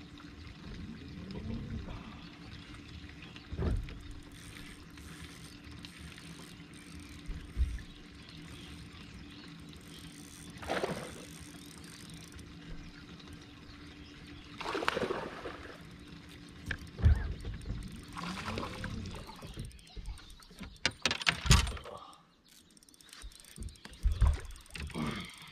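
Small fishing boat on the water: a faint steady low hum, broken a few times by short knocks and splashes. The hum drops away near the end.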